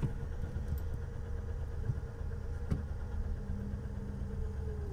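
Old Chevy Nova's engine idling steadily, heard from inside the cabin, with a faint whine in the idle that drops in pitch at the very end.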